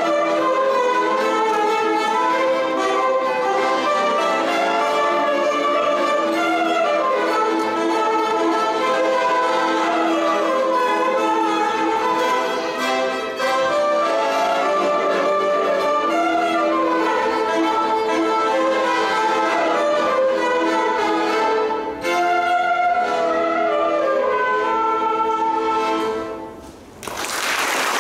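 Violin and accordion playing a tune together, the violin carrying a run of quick melodic phrases over a held accordion line. The music stops near the end and applause breaks out.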